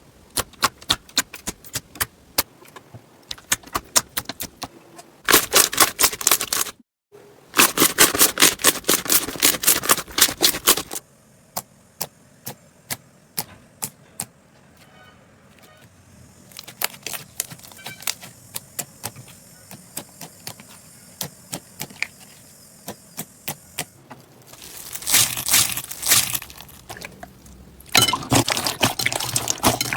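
Slime being squeezed and poked, giving rapid crackling clicks and pops. The clicking comes in bursts, with several stretches of dense crackling that start and stop abruptly.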